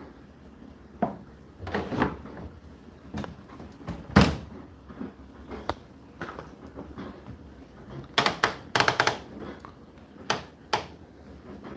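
Knocks and clicks of an Indesit condenser tumble dryer being handled before a cycle: a loud thud about four seconds in and a quick run of sharp clicks between eight and nine seconds in.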